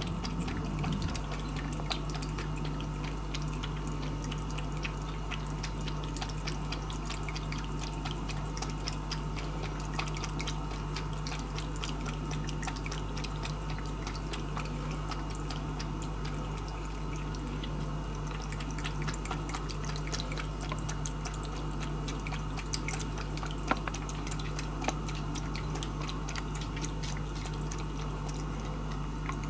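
Cat lapping water from a stainless steel bowl: a long, even run of small wet clicks from its tongue. A steady low hum lies underneath.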